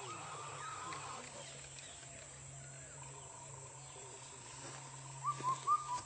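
Indian cuckoo, the 'kafal pakko' bird, calling its four-note phrase twice, once at the start and again louder near the end. Faint chirps of other small birds and a low steady hum lie underneath.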